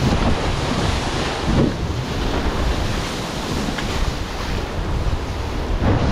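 Water rushing along the hulls of an Extreme 40 racing catamaran under sail, with wind buffeting the onboard microphone: a steady, loud rush of noise.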